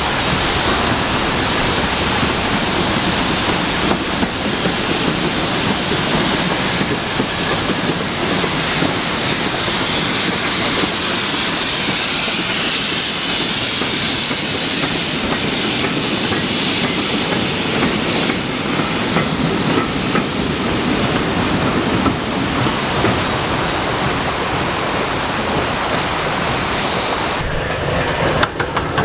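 Steam locomotives working trains: steam hissing while the wheels clatter over the rail joints, with a change in the sound near the end.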